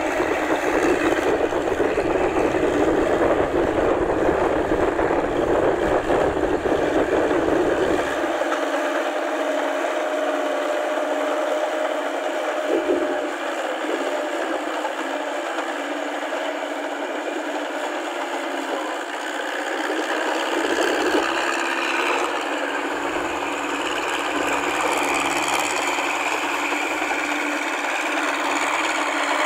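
Massey Ferguson tractor's diesel engine running steadily as the tractor, on crawler tracks, drags a rotary implement through a flooded rice paddy.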